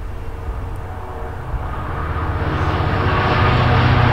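A pair of Class 66 diesel locomotives, with their two-stroke V12 engines running, approaching on a freight train. There is a low engine drone with a rushing noise over it, and both grow steadily louder from about halfway through as the locomotives draw near.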